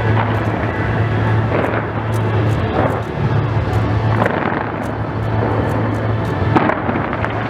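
Fireworks going off in a continuous barrage: a booming surge every second or two and faint crackles over a steady low rumble.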